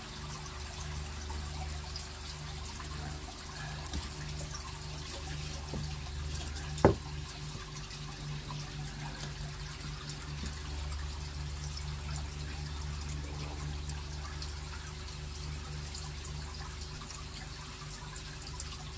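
Water splashing and trickling from a pipe into a shallow plastic tray, over a low steady hum. A single sharp knock about seven seconds in.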